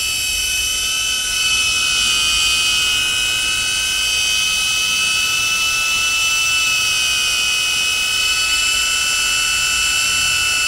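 DJI Avata FPV drone hovering on its stock propellers: a steady, high-pitched propeller whine made of several held tones.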